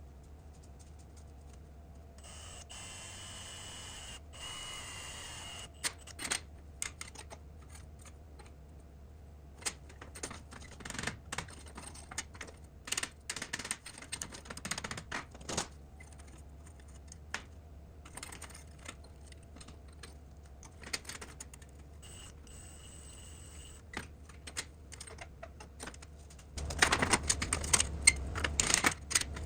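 Irregular clicks, taps and knocks of metal parts being handled and worked, over a low steady hum, with a steady hiss for a few seconds near the start and a denser, louder rasping noise near the end.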